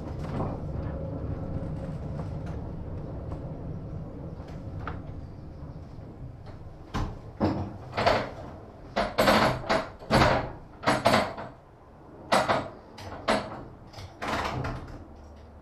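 1915 Ringhoffer tramcar heard from inside, its low running rumble slowly fading as it slows. From about seven seconds in comes a string of about ten short, sharp clattering bursts.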